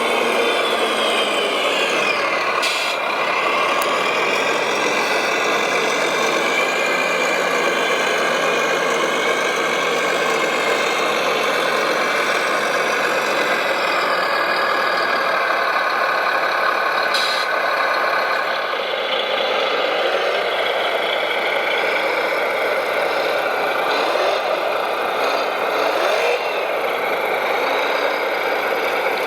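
Radio-controlled construction vehicles running, a steady mechanical sound with several whining tones that rise and fall as the machines work.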